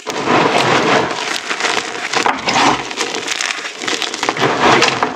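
Hard, crunchy chunks of reformed gym chalk crushed in bare hands, a continuous dense crunching and crackling of many small snaps as the pieces break and crumble.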